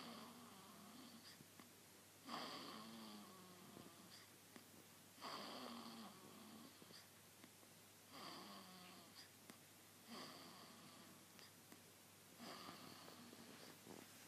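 Newborn baby snoring faintly in sleep, six snores about every two to three seconds, each a short pitched snore that sinks a little in pitch.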